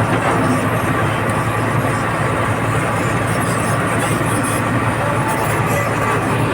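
Komatsu D85ESS crawler bulldozer's diesel engine running steadily under work, with some light metal clatter about three to five seconds in.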